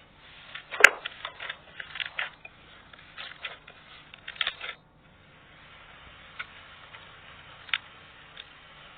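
Slime being squeezed and poked by hand, making a quick run of crackling clicks and pops with one sharp loud pop about a second in. After about five seconds only a few scattered ticks are left.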